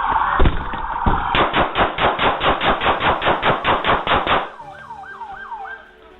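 Rapid gunfire: two shots, then a quick string of about fifteen more at about five a second. A few short falling wails follow near the end.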